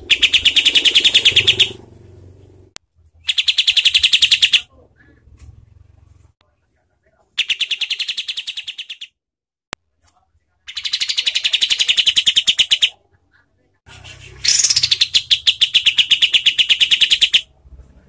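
Kapas tembak (olive-winged bulbul) singing its harsh, rapid-fire 'tembakan' song. It comes in five bursts of fast, evenly repeated notes, each one and a half to three seconds long, with short pauses between them.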